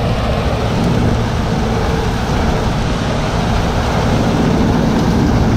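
Claas combine harvester running steadily as it cuts and threshes rapeseed, a constant machine noise with a low engine hum.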